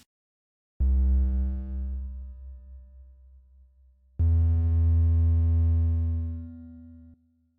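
Two synthesizer notes with heavy bass. The first starts about a second in and fades away. The second starts about four seconds in, holds steady and cuts off suddenly near the end. They are layers of a remade pachinko jackpot sound effect.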